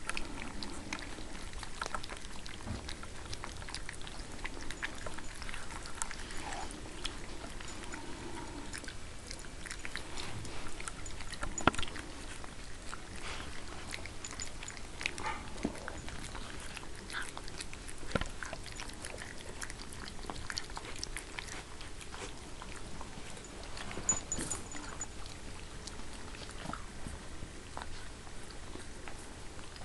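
Siberian Husky puppies eating from a metal bowl: a continual patter of small clicks, smacks and chewing noises as they lap and bite at the food. There is one sharper knock about twelve seconds in.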